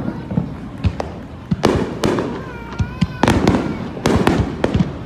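Aerial fireworks bursting: a rapid series of sharp bangs, about seven in five seconds, each followed by a short rumbling echo.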